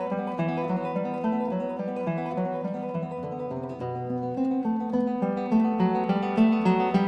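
Background music played on an acoustic guitar: a run of plucked notes and strummed chords.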